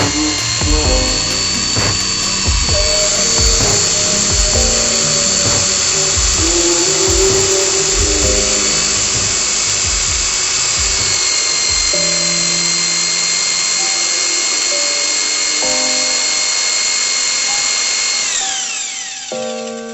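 Electric drill running steadily at high speed with a high-pitched whine, spinning wood against wood to make fire by friction; near the end the whine falls in pitch and dies away as the drill spins down. A song plays over it.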